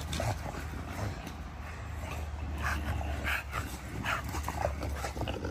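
American bully dogs giving short whimpers and yips several times in the second half while they play, over a steady low rumble.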